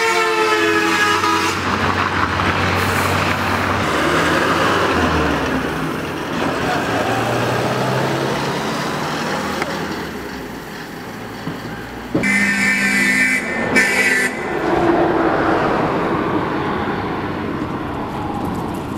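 Road traffic passing on a highway: vehicle engines and road noise. A horn sounds at the start, and two short horn blasts come about two-thirds of the way through.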